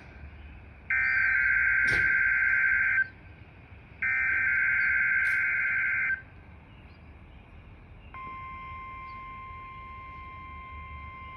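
NOAA Weather Radio Emergency Alert System signal: two bursts of the SAME digital header, a warbling two-tone data screech about two seconds each, a second apart. About eight seconds in, the steady 1050 Hz warning alert tone begins. Together they open a test tornado warning.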